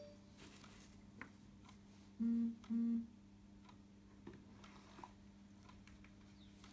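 A person humming two short notes, about two seconds in, over a faint steady low hum.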